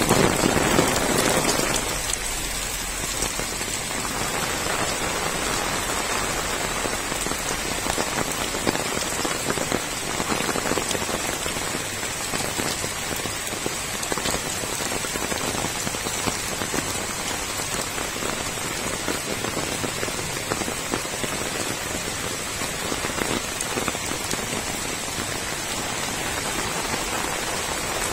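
Heavy rain falling steadily on seedling beds, puddles and wet ground: a dense, even patter of drops, a little louder for the first couple of seconds.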